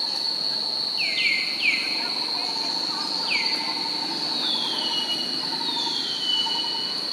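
Steady high-pitched insect drone, with short whistles sliding downward over it: three quick ones in the first two seconds, another a little after three seconds, and two longer, slower glides in the middle.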